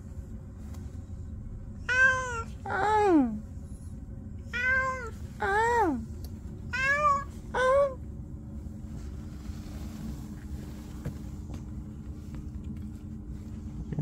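Domestic cat meowing six times in three quick pairs, several of the calls sliding down in pitch at the end, then falling silent for the last few seconds.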